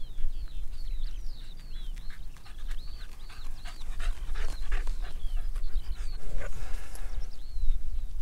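A dog panting in quick breaths, with a run of short high chirps over it and wind rumbling on the microphone.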